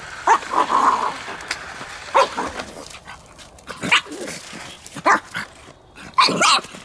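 Pug puppy barking: about six short barks, spaced a second or so apart, with a quick pair near the end.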